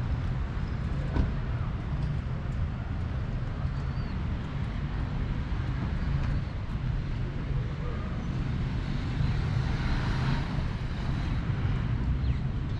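City street traffic: a steady low rumble of engines and tyres, with one vehicle passing close by about nine to eleven seconds in. A brief knock sounds about a second in.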